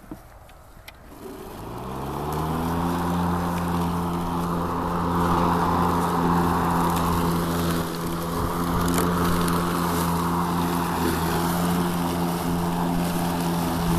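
Hart battery electric lawn mower's motor spinning up about a second in, its pitch rising, then running at a steady hum as it cuts grass.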